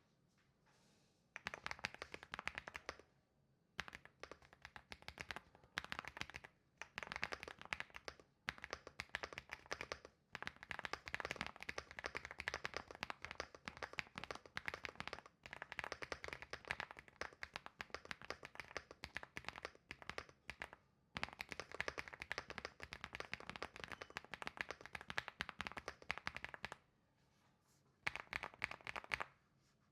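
Typing on a Rainy 75 Pro mechanical keyboard with Akko Creamy Blue (v5) switches and stock cherry-profile keycaps: rapid runs of key clacks in bursts of a few seconds, broken by short pauses.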